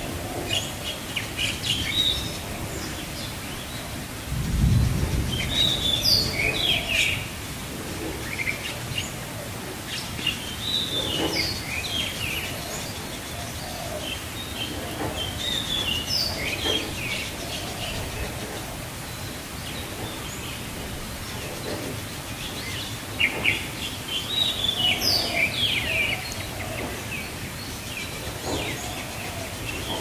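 Steady rain with birds chirping in short repeated phrases, and a brief low rumble about five seconds in.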